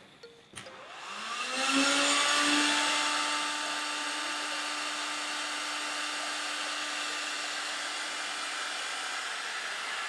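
Makita heat gun switched on at its maximum setting: a click, then its fan spins up with a rising whine about a second in and runs steadily with a blowing hiss.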